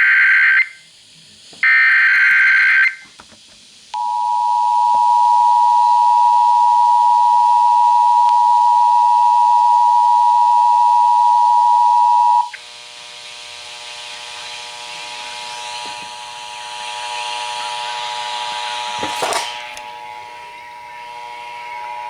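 Emergency Alert System tones relayed over the radio. First come two short bursts of screeching SAME header data, then the two-tone attention signal for about eight seconds. It cuts off sharply to a quieter steady buzzing hum with hiss, with a brief crackle near the end.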